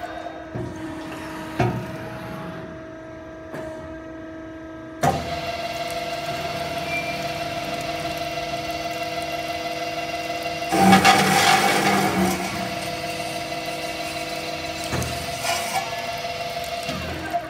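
Automatic cold saw cutting steel tube: a steady machine hum that steps up sharply about five seconds in, with a louder, rougher stretch around eleven seconds as the circular blade cuts through the tube. Sharp mechanical knocks from the clamps and feed come near the start and again near the end.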